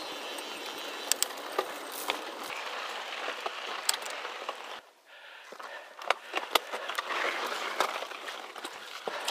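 Mountain bike rolling fast over rocky dirt singletrack: a steady hiss of tyres on dirt and gravel, broken by irregular sharp clicks and clacks as the bike rattles over rocks. The hiss drops away briefly about five seconds in.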